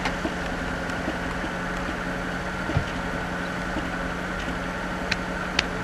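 Car engine idling with a steady hum and a few light clicks.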